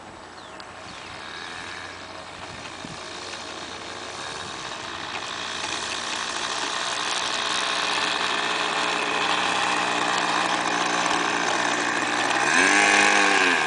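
Sig Kadet LT-40 model airplane engine idling as the plane taxis closer, growing steadily louder. Near the end the engine briefly rises in pitch and falls back.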